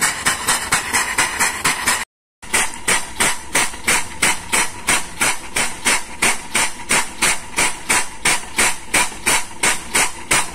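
Air-operated double-diaphragm pump running steadily, with a sharp stroke and a hiss of exhausting air about three and a half times a second, as it strips the last crude palm oil out of a tank. A short silent gap about two seconds in.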